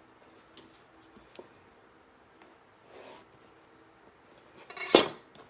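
Chef's knife cutting pickling cucumbers into spears on a cutting board: a few faint slicing scrapes, then one loud stroke with the blade knocking the board near the end.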